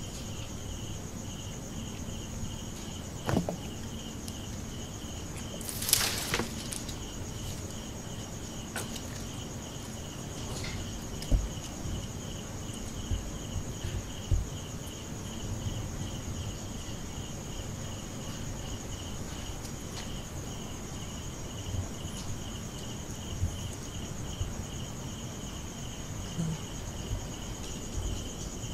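Crickets chirping steadily: a pulsing chirp repeating a few times a second, over a continuous higher trill. A few scattered knocks and a brief rustling burst about six seconds in.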